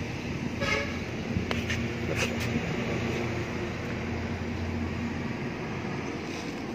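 A vehicle engine running steadily, with a brief horn toot just under a second in and a few light clicks around two seconds in.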